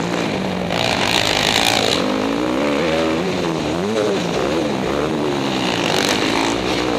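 Dirt bike engine heard from the rider's helmet camera, revving up and down repeatedly as the throttle is worked, its pitch rising and falling about once a second. A burst of rushing hiss comes about a second in and again near the end.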